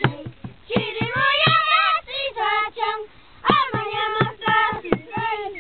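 A boy singing a folk song in phrases, accompanying himself with steady beats on a small drum struck with a stick. There are brief pauses between the sung lines.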